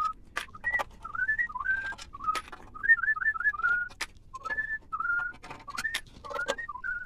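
A man whistling a tune in short gliding notes, with scattered sharp clicks and taps of tools and screws on the drive's metal casing while its hex screws are undone.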